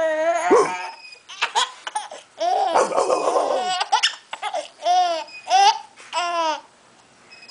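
A baby with the hiccups giggling in bursts of high laughter, ending in three rising-and-falling squeals.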